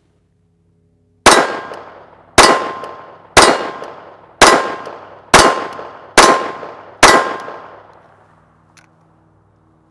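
Seven shots from a Beretta Model 21A Bobcat .22 LR pistol, fired at a steady pace of about one a second, each with a fading echo.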